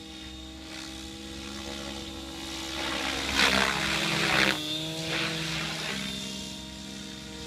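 Radio-controlled Align T-Rex 700L helicopter in flight: a steady whine from its rotor and motor, with a louder rushing swell of blade noise between about three and four and a half seconds in, after which the whine settles slightly lower.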